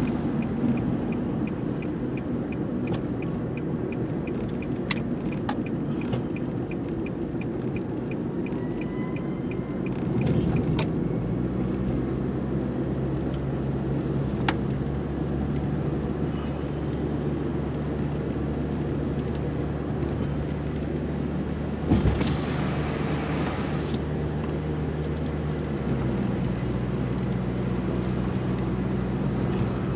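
Road noise inside a moving car's cabin: a steady low hum of engine and tyres, its pitch shifting about ten seconds in and again near the end. Small clicks and rattles come through, and there is one sharp knock about 22 seconds in.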